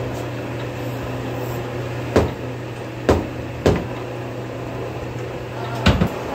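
Steady low workshop machine hum with four sharp knocks of a hydraulic cylinder and its parts being handled, two close together in the middle and one near the end.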